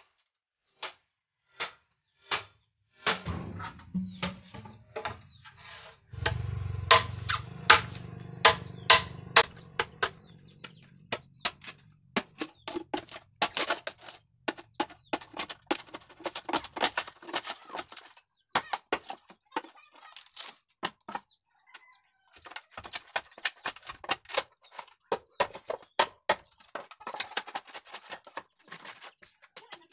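Homemade long blade, ground from a chainsaw guide bar, chopping into a standing bamboo pole: evenly spaced light strikes at first, then rapid, irregular hacks from about three seconds in. Chickens call in the background.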